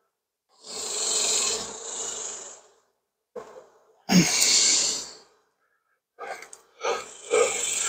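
A man's heavy breathing close to the microphone: three long exhales, the second beginning with a short voiced sigh about four seconds in.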